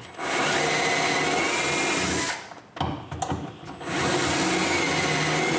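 Electric drill boring shelf-pin holes through a drilling jig: it runs steadily for about two seconds, stops, then runs again for another two seconds or so for a second hole.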